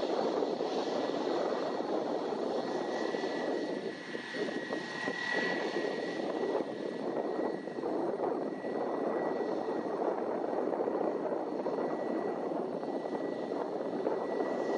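Airbus A320-232's IAE V2500 turbofan engines running at low thrust as the airliner taxis into position: a steady rush with a thin, high whine over it.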